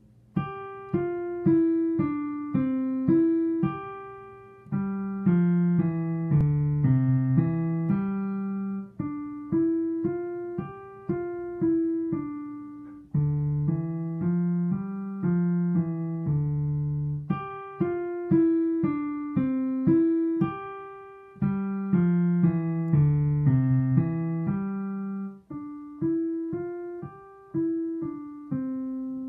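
Digital piano playing a simple beginner piece: one note at a time, passing between a low and a middle register at a steady tempo, with the opening passage repeated about halfway through.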